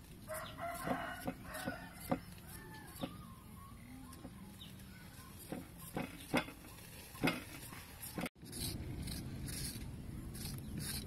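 Hens clucking in the first couple of seconds, over sharp scrapes and taps of a small knife paring the skin off a potato on a wooden chopping block. After a cut about two-thirds of the way in, a metal peeler scrapes strips off a carrot in quick repeated strokes.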